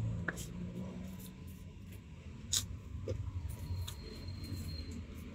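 Faint, scattered small clicks and taps as unripe mango slices are handled and dipped into small dishes of shrimp paste and salt, over a low steady hum.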